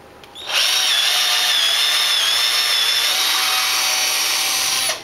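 Cordless drill boring a hole through a pine 2x4 board. The motor starts about half a second in, runs with a steady high whine for about four seconds, then stops suddenly.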